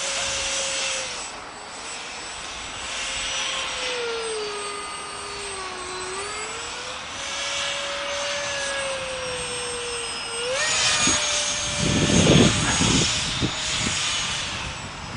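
Electric motor of a radio-controlled model Saab Viggen jet whining in flight overhead, its pitch sagging and rising with the throttle, then jumping up about ten seconds in. In the last few seconds gusty wind rumbles on the microphone.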